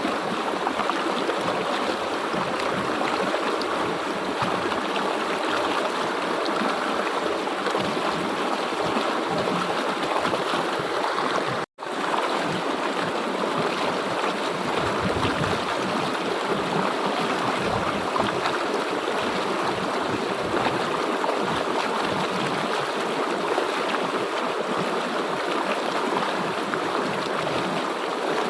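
River water flowing and rushing steadily, with a brief dropout to silence about twelve seconds in.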